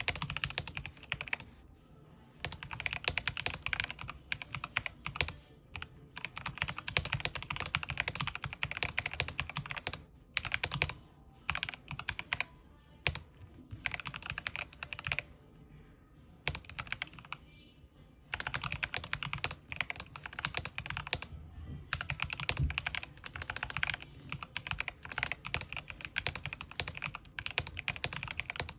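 Corsair K70 mechanical gaming keyboard being typed on: fast runs of key clicks broken every few seconds by short pauses.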